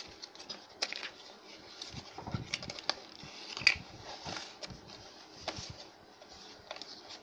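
Cardboard phone box being handled and opened: the printed sleeve slid off and the white box's lid lifted, giving scattered light clicks, taps and scrapes of card against card and fingers, with a sharper snap a little before the four-second mark.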